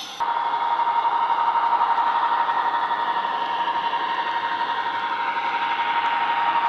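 Sound decoder in an OO gauge Class 59 model locomotive playing the Class 59's EMD two-stroke diesel engine through its small onboard speaker. The engine runs steadily with a constant high whine over it, and the sound cuts in sharply at the start.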